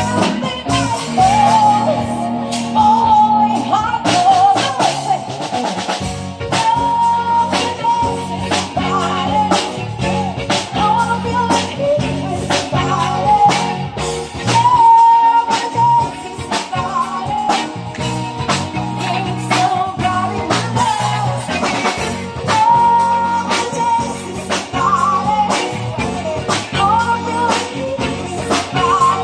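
Live band playing a song: two women singing into microphones over electric guitar, keyboard and a drum kit with a steady beat, amplified through the PA.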